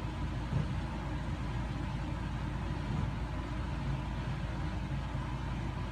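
Infiniti G35's V6 engine idling steadily, a low even rumble.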